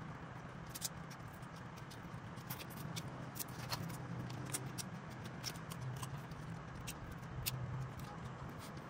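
Cooked crab shells and legs cracking and snapping as they are pulled apart by hand, a run of irregular sharp clicks over a steady low hum.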